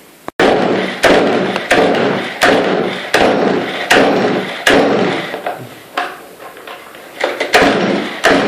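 STIHL 180 two-stroke chainsaw being pull-started: the recoil starter cord yanked over and over, about one pull every 0.7 s, each a sharp rasp that dies away, with quicker pulls near the end. The engine does not catch; the tank is low on petrol.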